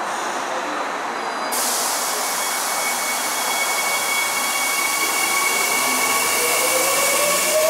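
Seoul Metro Line 3 electric train pulling out of the platform. A steady hiss sets in suddenly about a second and a half in, and near the end a whine from the traction motors rises in pitch as the train picks up speed.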